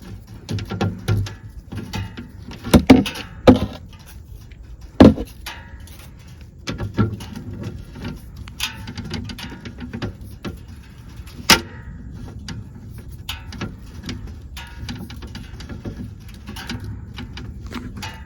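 Hand tools working the 10 mm bolts out of a metal plate under a utility vehicle: irregular clicking and scraping of a socket wrench, with several loud metallic clanks about three, five and eleven seconds in.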